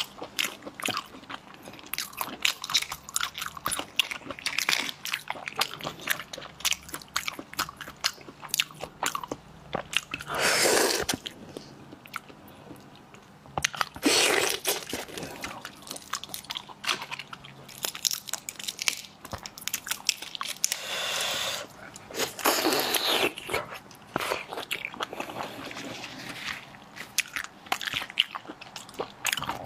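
Close-miked biting and chewing of raw lobster: many small wet clicks and crunches of shell and flesh, with a few longer, louder wet noises from the mouth.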